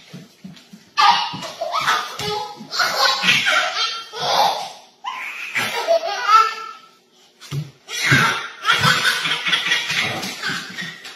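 A baby laughing hard in several fits, each a second or two long, with short breaks between them.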